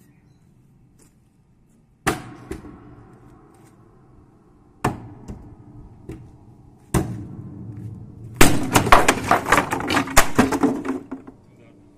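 Old upright piano's wooden cabinet struck with a mallet: three separate heavy blows a couple of seconds apart, each leaving the piano ringing. Then a few seconds of rapid, loud cracking and clattering as the front panels break loose.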